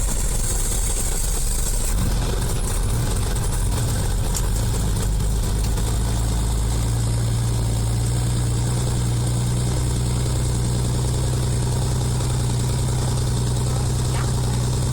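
Helicopter engine and rotor running steadily, a low hum that grows stronger over the first several seconds and then holds steady.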